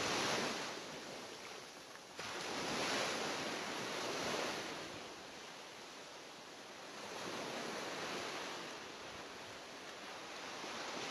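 Sea water rushing and splashing in a steady hiss that swells and fades, with a sudden jump in loudness about two seconds in.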